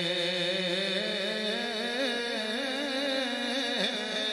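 A man's voice singing a long, wavering melismatic line of a Punjabi Sufi kalam into a microphone, the pitch sliding up and down in ornaments and dropping away near the end.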